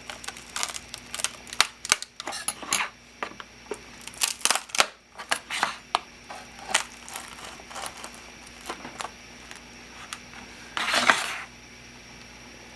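Irregular clicks, cracks and creaks of a thin-walled glow-in-the-dark plastic 3D print being prised off the glue-stick-coated print bed, with a short louder rasp near the end.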